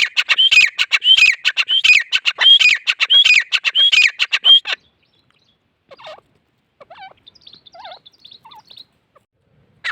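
Gray francolin calling: a loud, fast, repeated series of harsh notes that breaks off about halfway through. After it come a few faint, softer scattered notes and one short sharp note at the very end.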